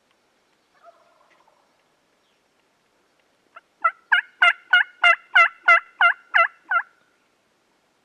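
Turkey yelping: a faint short call about a second in, then a run of about ten loud, evenly spaced yelps, a little over three a second, each note dipping and rising in pitch.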